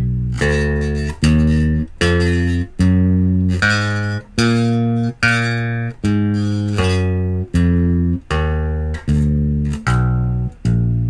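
Electric bass guitar played solo, single plucked notes about one every 0.8 s, each ringing until the next, running up and back down the B-flat super Phrygian scale.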